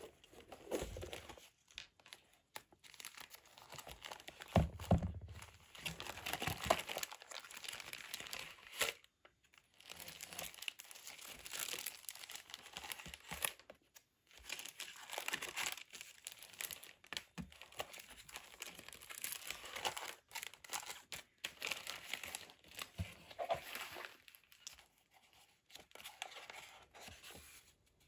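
Paper scraps handled by hand: irregular tearing, rustling and sliding of paper, with a heavier bump about five seconds in.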